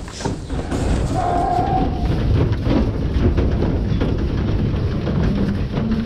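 Background music over heavy thumps and knocks of Holstein heifers' hooves as they walk off a livestock trailer.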